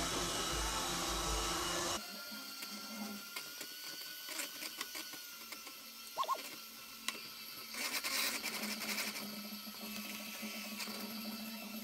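Moulinex electric hand mixer running, its beaters working cake batter in a plastic bowl. About two seconds in, the sound drops abruptly to a quieter, thinner whine with scattered clicks and crackles.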